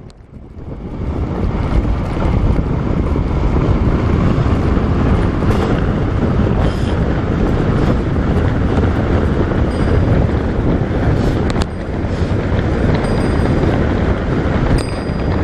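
Wind rushing over the microphone of a bike-mounted camera as a bicycle descends at about 65 km/h, a loud, steady rush that swells up over the first second or two.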